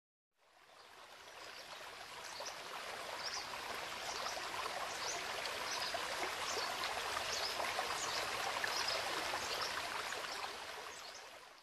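Running water like a flowing stream, fading in at the start and fading out at the end, with short high chirps now and then above it.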